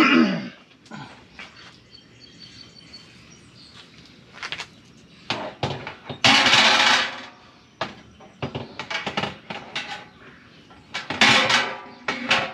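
Metal wire cooking racks of a Masterbuilt electric smoker being handled and slid into the cabinet: scattered metallic clinks and knocks, a longer scraping slide about six seconds in, and another clatter near the end.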